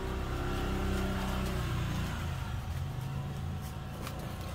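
Steady low engine hum, as of a vehicle running, easing off a little about halfway through, with a few light clicks of packaging being handled near the end.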